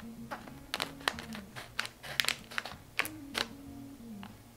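Scissors snipping open a plastic anti-static bag: a series of sharp, irregular clicks, with the bag crinkling.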